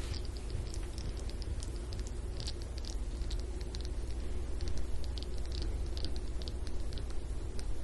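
Soft-tissue massage strokes over skin: faint, irregular rubbing and crackling rustles over a steady low room hum.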